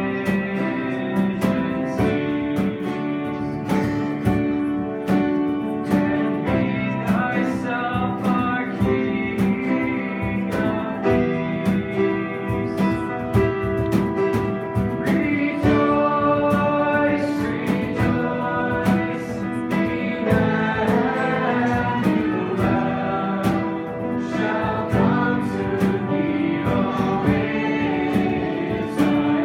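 Worship band music: sung vocals over a strummed acoustic guitar, with regular strums throughout.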